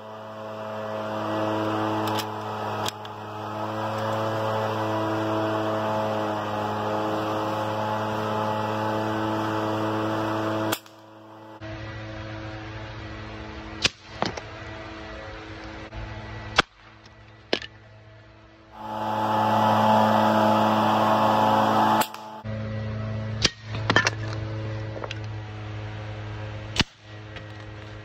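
Air rifle shots from an AEA .25 calibre air rifle, about a dozen sharp cracks spread through, some in quick pairs, with pellets striking targets on a post. Background music plays under the shots in two long stretches.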